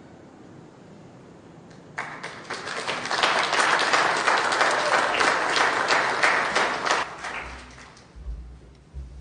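Congregation applauding, with many hands clapping. It starts about two seconds in, once the last notes of the music have died away, and fades out near the end.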